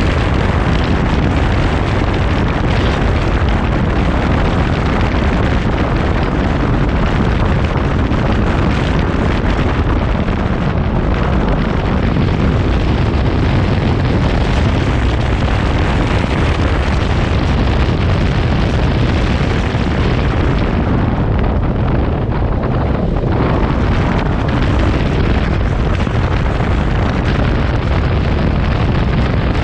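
Steady wind rush and buffeting on the camera microphone of a moving motorcycle at road speed, with the KTM motorcycle's engine running underneath. The hiss thins for a few seconds about two-thirds of the way through.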